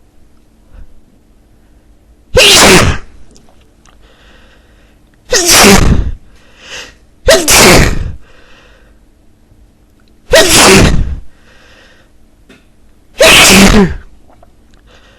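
A man sneezing hard five times, one loud sneeze every two to three seconds, with faint breaths between them.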